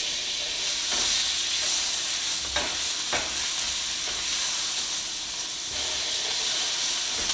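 Butter sizzling as it melts in a hot frying pan, stirred with a kitchen utensil, with a few sharp clicks of the utensil against the pan.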